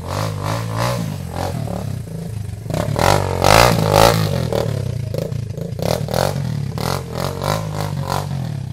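Dirt bike engine revving again and again as it climbs a muddy trail, loudest about three to four seconds in as it passes close by.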